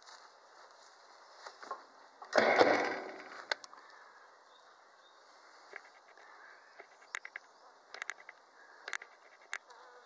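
Honey bees buzzing faintly on a brood frame lifted out of an open hive. A loud rustle lasting about a second comes in about two and a half seconds in, and a few faint clicks follow in the second half.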